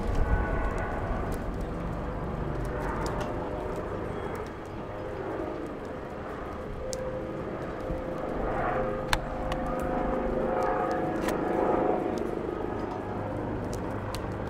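Airbus H145 rescue helicopter on approach: a steady rotor and turbine sound under street noise, growing louder in the second half.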